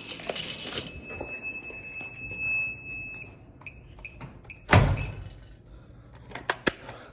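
Interlogix Networx NX8 alarm keypad sounding a steady high beep, typical of the entry-delay warning, that stops about three seconds in, followed by a run of short beeps as the disarm code is keyed in. A loud door thump comes about five seconds in, then a few sharp clicks near the end.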